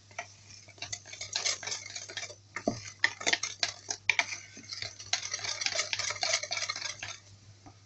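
Wire hand whisk stirring thick cake batter in a plastic bowl, working in the sifted flour: quick, irregular clicks and wet slaps of the wires against the bowl, stopping about a second before the end.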